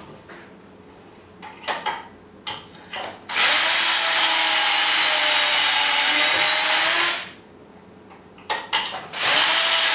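Power drill boring pocket holes through a clamp-on pocket-hole jig into wood: a few clicks and knocks of handling, then the drill runs with a steady whine for about four seconds and stops, and starts again near the end after a couple more clicks.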